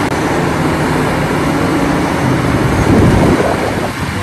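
Large Cat 6015B hydraulic mining excavator running, a dense steady engine and machinery din with a low hum, swelling to a louder rumble about three seconds in.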